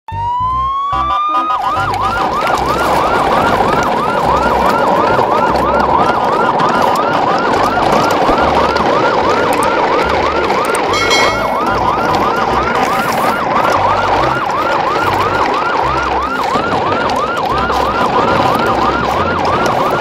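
Electronic siren: one long rising wail, then rapid yelp-style whoops repeating about three times a second.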